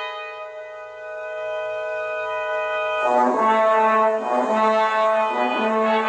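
Brass music: a held chord slowly fades over the first three seconds, then the brass comes in louder with short repeated notes over a held low note.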